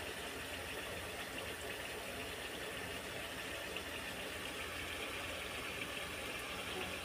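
Duck curry gently sizzling in the pan: a steady, even low hiss with no stirring or clatter.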